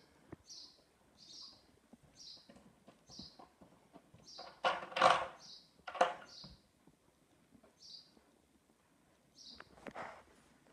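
A small bird chirping over and over, about once a second, short high chirps. About five seconds in there is a louder half-second rush of noise, then a sharp thump about a second later, the loudest sounds here.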